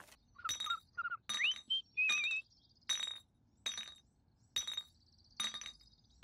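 A series of light, glassy chiming strikes, about one every 0.8 seconds, each ringing briefly. In the first couple of seconds a few short, wavering chirps sit between them, one sliding upward.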